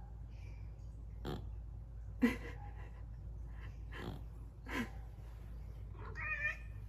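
A sleeping cat snoring: four short snoring breaths at uneven gaps, the loudest about two seconds in. A brief higher, pitched sound follows near the end.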